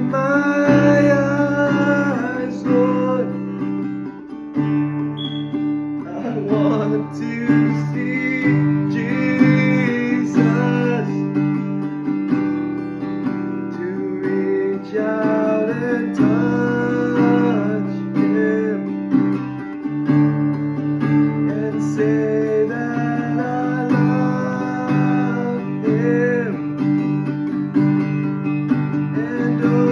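Acoustic guitar being strummed and picked, with a voice singing a melody over it.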